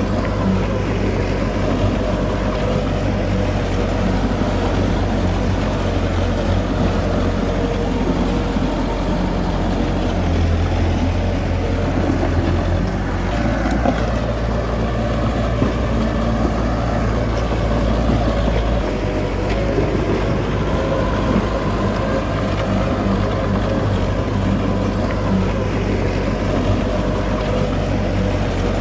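Heavy diesel engine running steadily under varying load, its low note stepping up and down several times.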